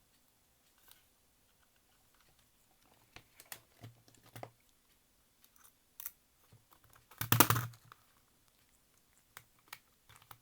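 Small clicks and taps of a screwdriver and the plastic casing of a portable cassette player being handled while its shell screws are driven in. About seven seconds in there is a louder cluster of knocks and rustling.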